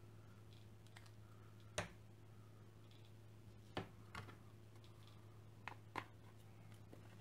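Five scattered light clicks and taps from the black acrylic base plate of an LED sphere kit being handled on a tabletop, the loudest about two seconds in, over a faint steady low hum.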